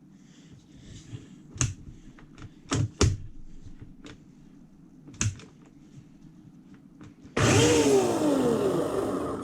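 Ryobi One+ 18V brushless battery chainsaw: a few sharp clicks of the trigger and safety catch with no motor, then about seven seconds in the motor and chain run loudly for about two seconds with a whine that falls in pitch, stopping abruptly.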